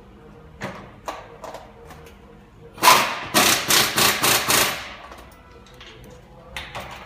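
A quick run of about six sharp metal knocks, like a tool striking steel, from work on the underside of a car on a lift. A few lighter clicks come about a second earlier.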